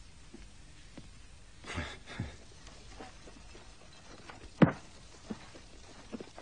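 Faint scattered knocks, a short noisy rush about two seconds in, and one sharp knock about two-thirds of the way through, which is the loudest sound.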